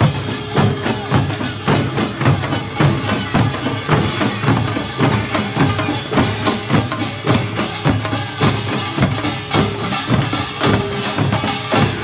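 Korean pungmul percussion troupe playing: janggu and buk drums beaten together in a fast, steady rhythm.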